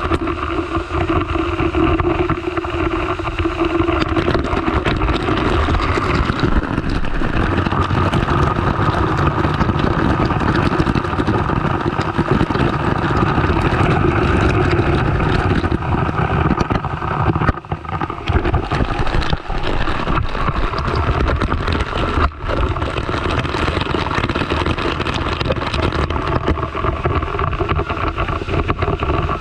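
Heavy cascade of water pouring down and splashing straight onto a handheld camera: a loud, steady rush of falling water and spray, with two brief dips a little past the middle.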